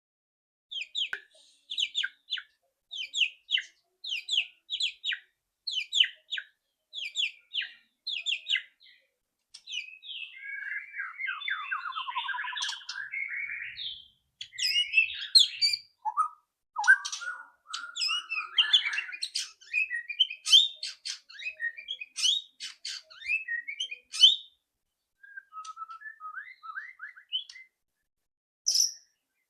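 White-rumped shama calling and singing: a run of short, harsh rattling calls (ketrekan) repeated about every half second, then a dense twittering stretch, then varied whistled phrases mixed with rattles that thin out toward the end.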